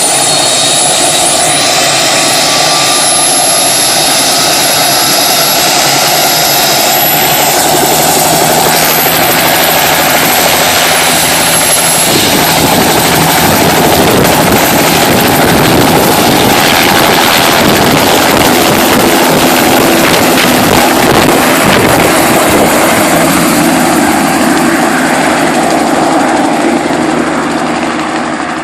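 Helicopter noise, loud and steady, with a thin high whine that rises slowly in pitch over the first several seconds; the noise fades out near the end.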